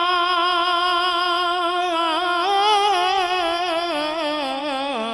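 A man singing a hamd (an Urdu devotional poem) holds one long note through a microphone. The note stays level for about two seconds, then wavers in ornamented turns and steps down lower near the end.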